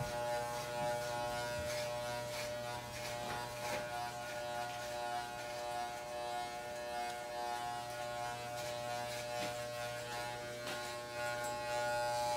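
Corded electric hair clippers buzzing steadily as they cut hair.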